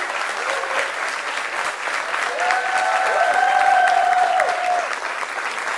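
Audience applause, steady clapping throughout, with a drawn-out cheer from a few voices rising over it about halfway through.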